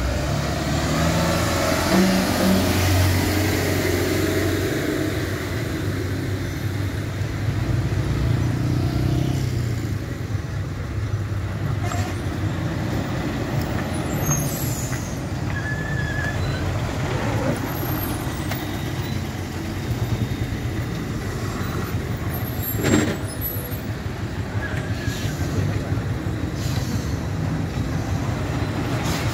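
Diesel engines of loaded lorries and a bus running slowly under load as they turn a hairpin bend one after another, a steady low hum that is strongest in the first third. A single short sharp sound about two-thirds of the way through.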